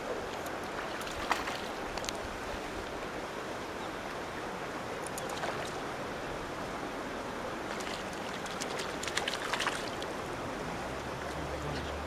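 A hooked trout splashing at the surface while being played on a fly rod: short splashes about a second in and a cluster of them around nine to ten seconds, over a steady outdoor rush.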